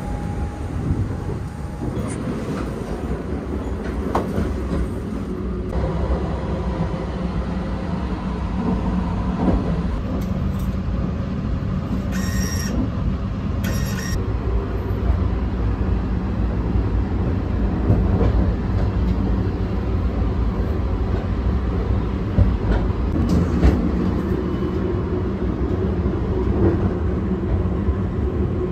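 Inside the running Sunrise Seto sleeper train: a steady low rumble from the wheels and car body, with scattered small knocks. About halfway through come two short electronic beeps from the shower card reader.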